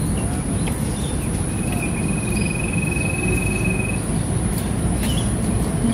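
Insects droning steadily at a high pitch, with a thin high trill lasting a couple of seconds near the middle, over a low steady rumble.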